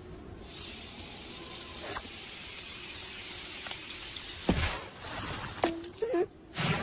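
Cartoon sound effects: a steady sizzling hiss, with a quick falling-pitch swoop ending in a low thud about four and a half seconds in, and a few short wavering squeaks near the end.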